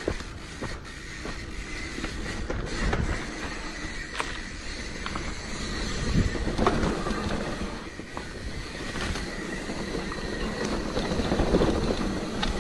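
Commencal hardtail mountain bike running fast down a rough dirt trail: a continuous rattle from the bike and tyres over the bumpy ground, broken by sharp knocks from impacts.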